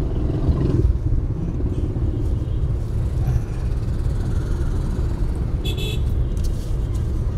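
Inside a moving car: a steady low rumble of engine and road noise, with a brief high tone about six seconds in.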